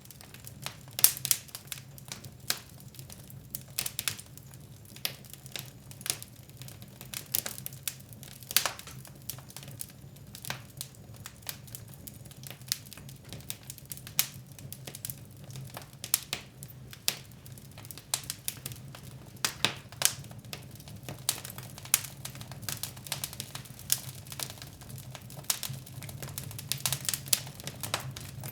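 Wood fire burning in a fireplace, crackling and popping: irregular sharp snaps, some much louder than others, over a low steady background.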